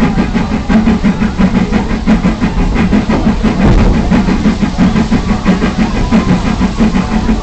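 An engine running with a rapid, uneven pulsing.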